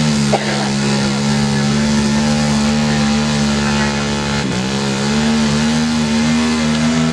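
Small quad ATV engine held at high revs while its wheels spin in deep mud, with a brief dip in revs about four and a half seconds in; the quad is bogged down and digging in rather than moving forward.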